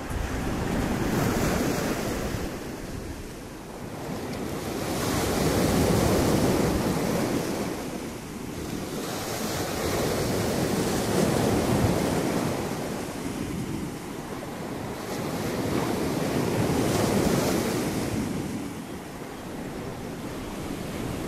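Sea surf breaking and washing up a pebble shore, swelling and fading in slow surges about every five seconds, with wind buffeting the microphone.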